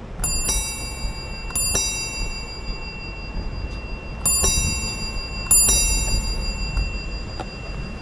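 Bicycle bell rung in four quick double dings, each ring hanging on and fading, to warn pedestrians on the path ahead.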